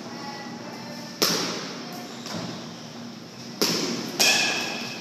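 Three sharp smacks of pitched baseballs hitting their target: one about a second in, then two close together near the end. Each sound rings on briefly in a large indoor hall.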